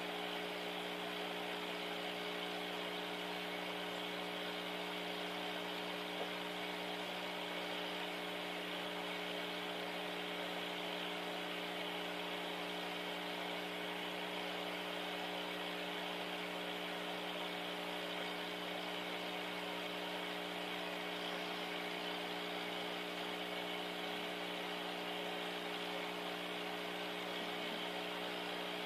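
Steady hum of a small motor: several fixed tones over a soft hiss that never changes.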